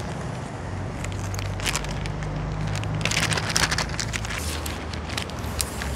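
Plastic bag crinkling and rustling in irregular bursts as it is handled, busiest about three seconds in, over a low steady rumble.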